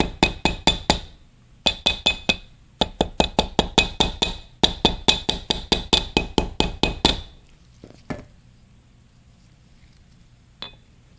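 Hammer tapping on a steel ball joint adapter used as a bearing driver, working around it to drive a bearing evenly into place. The strikes come quickly, about five a second, in several runs, and each one rings. Two single taps follow later on.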